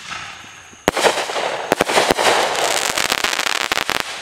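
Consumer aerial firework shell bursting with a sharp bang about a second in, followed by a couple of seconds of dense, rapid crackling from its crackling stars.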